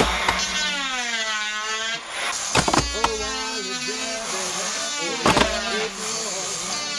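Corded electric disc sander whining as it grinds old paint off wooden ceiling boards, its pitch sagging and rising as the disc is pressed against the wood and eased off. Sharp knocks come near the start and twice more, about two and a half seconds apart.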